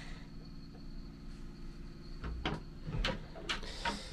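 A faint steady low hum, with a handful of light knocks and clicks in the second half from cabin woodwork being handled in a boat's small head.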